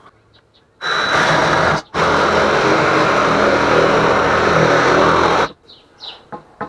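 Reciprocating saw cutting through a wooden 2x4: a short run about a second in, a brief stop, then a steady cut of about three and a half seconds that stops suddenly as the piece comes off.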